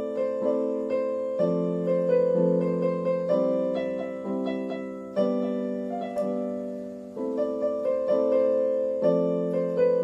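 Background instrumental music: a gentle keyboard tune of struck notes and chords, each fading after it is played, with a new note or chord every half second to a second.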